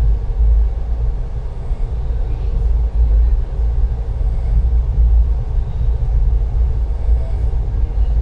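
Passenger train running, heard as a steady deep rumble that swells and dips.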